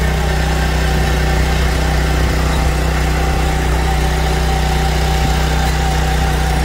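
Engine of a walk-behind power weeder running steadily while its rotary tines till stubble soil, a constant unchanging hum.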